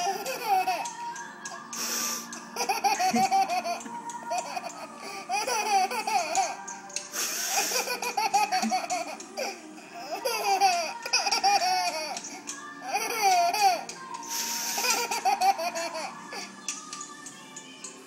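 A baby laughing in repeated bursts of squealing giggles, set off by an adult's loud sniffs through the nose, which come as short hissing blasts a few times.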